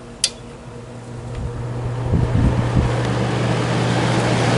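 A click of the control knob, then the 1972 HeatController window air conditioner's fan motor starting on low speed: a hum comes in and the rush of air builds up over about two seconds, then runs steadily.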